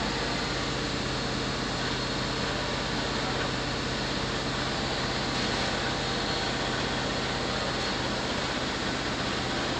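2007 GMC Yukon V8 idling steadily with an even low hum. A misfire comes and goes on cylinders 2 and 7, logged as trouble code P0300.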